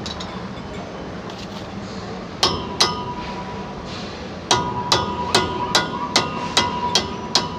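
A hammer striking steel with a ringing metallic note: two blows a little over two seconds in, then a steady run of about eight blows, roughly two and a half a second, from about halfway through.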